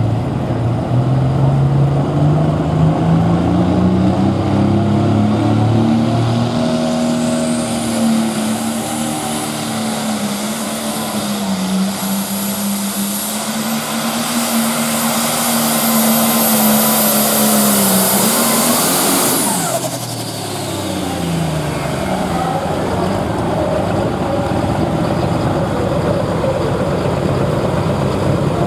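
Case IH Light Pro pulling tractor's engine at full throttle under load. Its pitch climbs over the first few seconds, then holds with a high whine above it. About two-thirds of the way through the throttle is cut: the engine note and whine fall away, and it settles to a lower idle.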